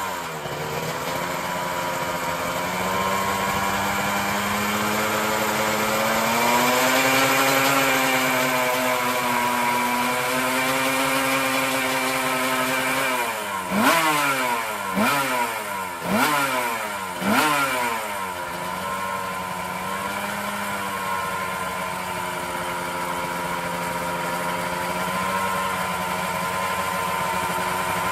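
Suzuki RGV Gamma 500 Grand Prix racer's V4 two-stroke engine idling on its stand, its revs wavering slowly. About halfway through it gets four sharp throttle blips about a second apart, each rev rising and dropping back, then it settles to a steady idle.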